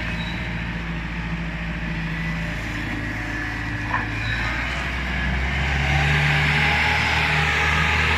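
Compact skid steer loader's Kubota engine running steadily, growing louder a little over five seconds in, with a brief click near the four-second mark.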